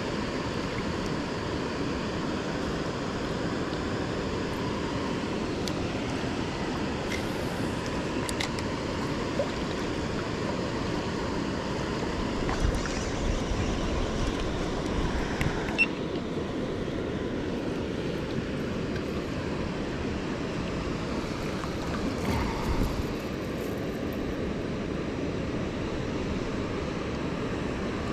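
Steady rushing of water flowing over a river weir, with a few brief knocks.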